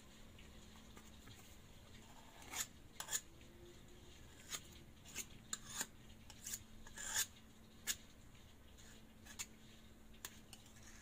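Scattered faint scrapes and light taps while a stainless steel cake ring is topped up with chocolate cream, each a fraction of a second, over a faint steady hum.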